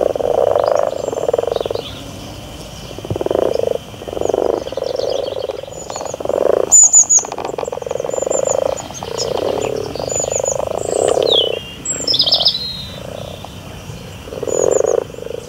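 A chorus of frogs calling in repeated pulsing croaks, each lasting about a second, with birds chirping high above them. A quick cluster of sharp chirps about halfway through is the loudest moment.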